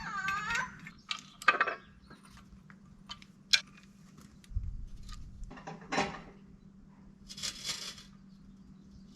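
Small metal parts such as bolts, washers and tools clinking and clattering in hand, in scattered single clicks. A short squeak comes at the very start, a dull thud about halfway, and a brief scrape near the end.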